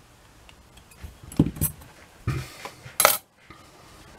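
Small metallic clicks and knocks of the brass parts of an antique torsion clock's movement being handled and fitted together: a few light taps about a second and a half in, a knock a little later, and a sharper click about three seconds in.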